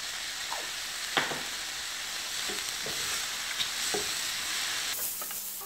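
Chopped vegetables sizzling on high heat in a stainless steel frying pan while a slotted spatula stirs and tosses them, with a few light knocks of the spatula against the pan. A brief louder burst of hiss near the end.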